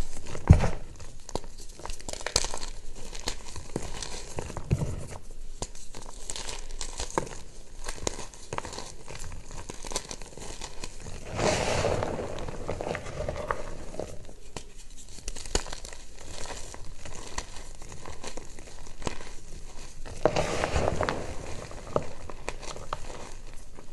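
Reformed gym chalk crushed by hand: dry crunches and crackles of chalk chunks breaking, with soft rushes of powder and pieces pouring through the fingers, fuller and louder about halfway through and again near the end.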